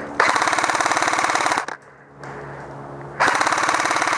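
Airsoft gun firing on full auto in two long, rapid bursts of about a second and a half each, separated by a short pause.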